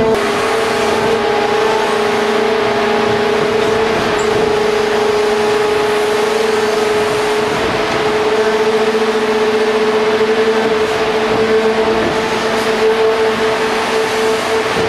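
ITC 312 H1 tunnel heading machine working at a rock face, its boom raking broken rock onto the loading apron. A loud, steady, high whine with overtones sits over a dense clattering noise of the machine and rock throughout.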